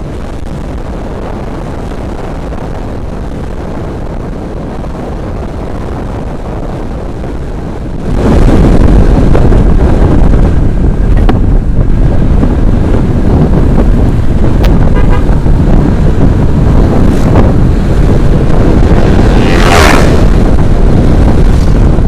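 Wind rushing over the microphone of a moving motorcycle, with road and engine noise, much louder from about eight seconds in. A vehicle horn sounds briefly near the end.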